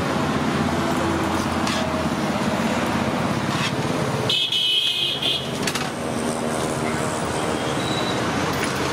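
Steady road traffic noise with vehicle horns honking now and then, including a short high-pitched toot about four and a half seconds in.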